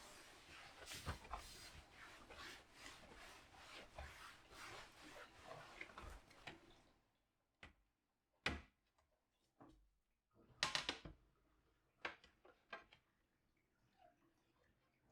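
Faint kitchen-cleaning handling sounds: soft rubbing and clatter for about seven seconds, then a few scattered sharp knocks and clicks.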